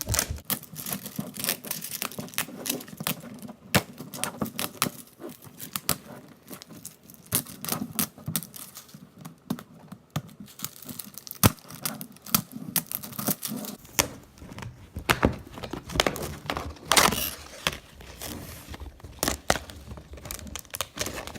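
Toy packaging being unrolled and torn open by hand: a long, irregular run of crinkling and tearing with many sharp clicks and taps, busiest a little past the middle.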